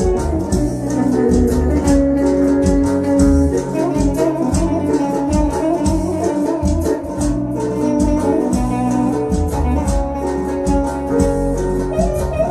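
Live electric guitar and electronic keyboard playing together: a melody of long held notes over a steady beat.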